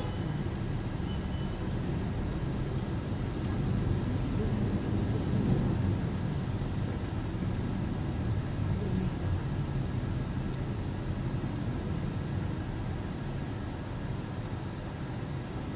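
Car cabin noise while driving slowly in city traffic: a steady low rumble of engine and tyres, swelling slightly a few seconds in, with a faint steady high-pitched tone over it.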